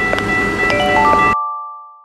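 Chime-like electronic tones held over a steady hiss. The hiss cuts off suddenly past the middle, leaving a few lower tones that fade out.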